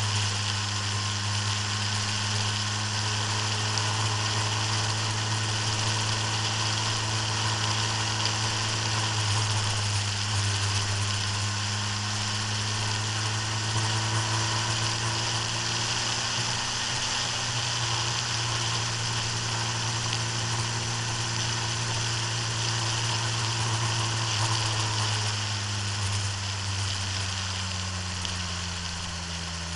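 A vehicle's engine, heard from an onboard camera, runs at a steady pitch at speed under a haze of wind and road noise. Near the end its pitch falls as it slows.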